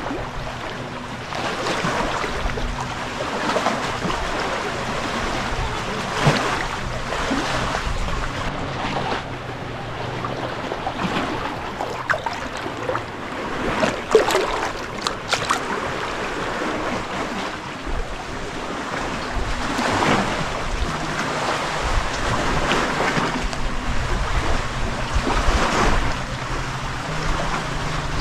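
Shallow seawater splashing and sloshing as someone wades through it, swelling every couple of seconds, with wind rumbling on the microphone.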